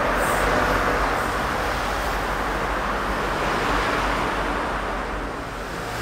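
GM GT22CW2 diesel-electric locomotive running as it pulls slowly out of the station: a steady engine rumble and rush, easing slightly near the end.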